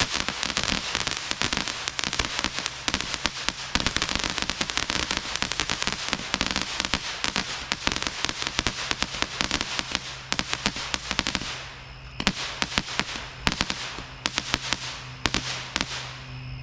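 Consumer fireworks firing, from Roman candle barrage batteries and pearl-shot cakes together: a dense, rapid stream of small shots and crackle that thins to scattered separate pops in the last few seconds.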